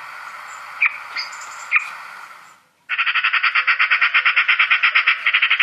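Recorded Eurasian magpie: a few single sharp calls about a second apart, then, about three seconds in, a long rapid rattling chatter, the scolding call of the magpie.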